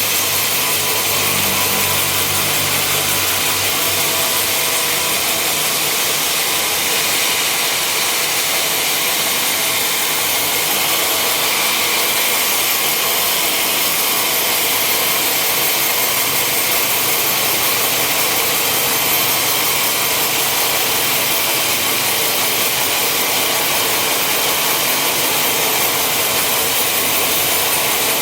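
A sawmill's saw cutting through timber, a steady high-pitched hiss over the running machinery.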